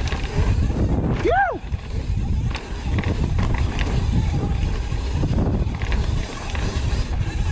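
Wind buffeting the microphone and the rumble and rattle of a mountain bike descending a trail. About a second in comes one short whoop that rises and falls in pitch.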